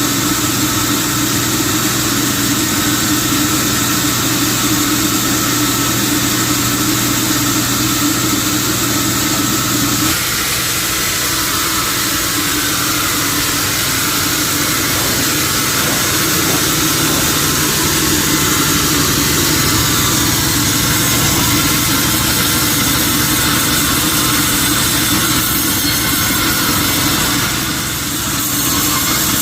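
Sawmill machinery running steadily: a constant motor hum with a strong high hiss. The sound changes character about ten seconds in and dips briefly near the end.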